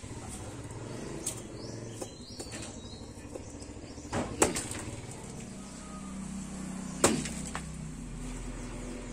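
Cut halves of a raw jackfruit being handled on a plastic sheet: rustling, with two sharp knocks about four seconds in and another near seven seconds, over a steady low hum.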